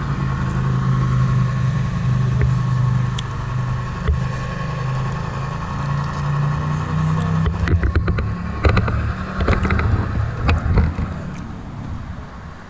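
Onboard sound unit of a model Class 59 diesel locomotive playing its diesel engine sound, a steady low drone that shifts pitch now and then, as the loco runs. A few sharp clicks and knocks come between about eight and eleven seconds in, and the sound drops away near the end.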